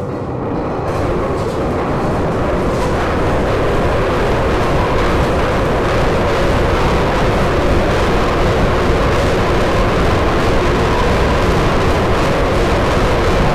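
An aircraft carrier's anchor chain running out over the windlass as the anchor is lowered. It makes a loud, steady rumbling clatter that builds over the first second or two, then holds.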